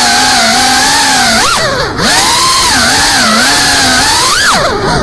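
FPV quadcopter's brushless motors whining, the pitch sliding up and down with the throttle. The whine dips briefly about two seconds in and again near the end before climbing back.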